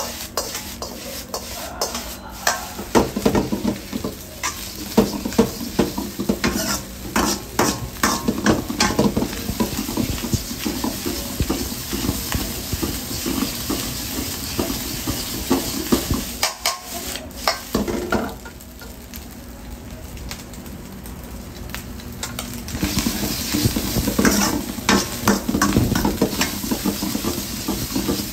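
Stir-fried noodles with cabbage and onion sizzling in a wok while a metal ladle stirs and tosses them, clanking and scraping against the pan. The stirring pauses for a few seconds past the middle, leaving only the sizzle, then starts up again.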